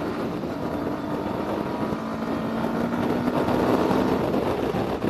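Yamaha R15 V3's single-cylinder engine running under throttle while riding in traffic, getting louder toward the middle, with wind rushing over the helmet microphone.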